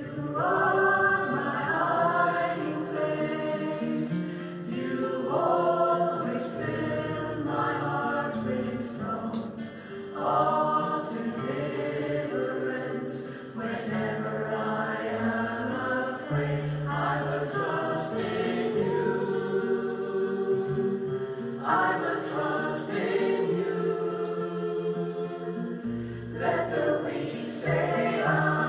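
Mixed folk choir of women's and men's voices singing in harmony, coming in at the start and singing in phrases with short breaths between them.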